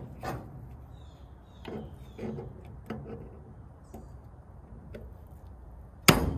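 Pliers clicking on the steel emergency-brake arm of a drum-brake shoe as its retaining clip is worked off. About six seconds in comes a sharp, loud snap as the clip springs free and flies off.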